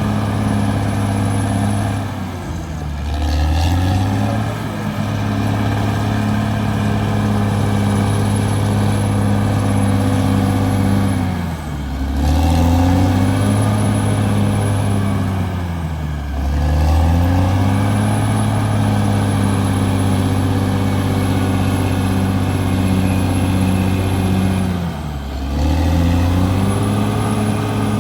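CAT D6R bulldozer's diesel engine running hard and steady, its pitch sagging briefly and climbing back four times, as the engine lugs under load.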